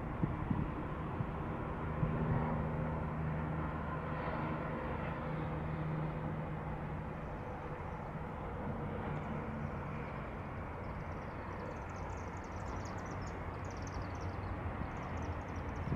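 Diesel locomotive approaching, its engine running with a steady low drone. Faint high chirps come in over the last few seconds.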